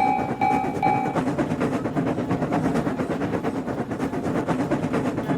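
Railroad crossing alarm sounding in even pulses, about two a second, cutting off about a second in, over the rumble and rapid clatter of a train running past.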